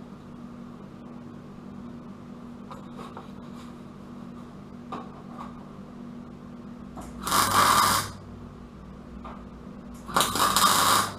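Two short MIG tack welds on the car's steel wheel-arch lip, each a loud burst of welding noise lasting under a second, about three seconds apart near the end. A steady low hum runs underneath, with a few light clicks before the first tack.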